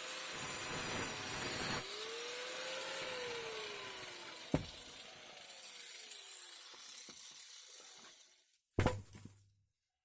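Angle grinder with a wood saw blade cutting through a branch. The motor's pitch dips and recovers as the blade bites, then the grinder winds down about eight seconds in. A single loud thump follows.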